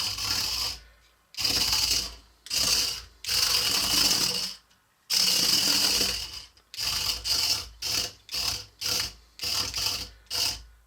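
HexBug Fire Ant robot toy's small motors and gears driving its tracks in stop-start bursts as the remote buttons are pressed and released, a buzzy mechanical whir. The bursts run longer in the first half and become short and quick, about two a second, near the end.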